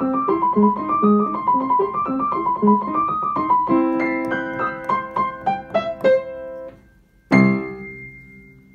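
Upright piano played with quick running notes, then slower held notes, then after a short pause one loud closing chord about seven seconds in that rings and dies away.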